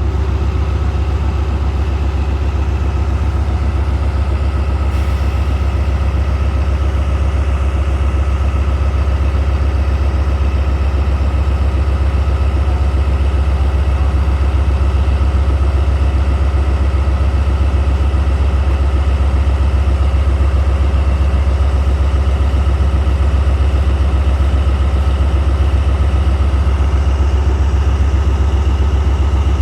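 ZCU-30 diesel-electric locomotive's engine running steadily at idle, a deep, even drone with a steady hum above it.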